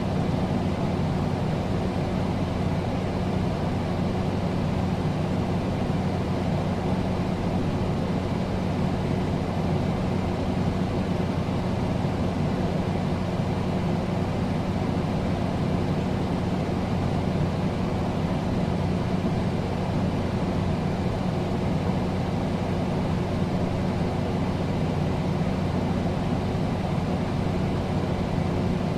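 Air conditioner running steadily: an even rush of air over a low, constant hum.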